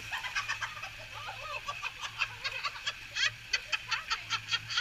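People laughing hard in quick, short cackling bursts, about five a second toward the end.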